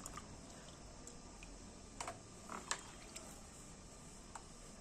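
Quiet room tone with a few short, faint clicks and taps, about two seconds in and again near the end.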